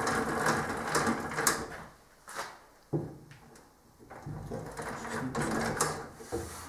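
Metabo DH330 thickness planer's motor running on a test start with its newly fitted infeed roller, fading about two seconds in and picking up again from about four seconds.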